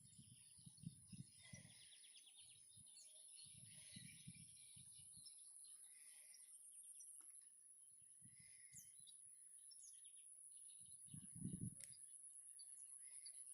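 Near silence: faint outdoor ambience with scattered bird chirps, a steady faint high-pitched whine, and a few low rumbles on the microphone.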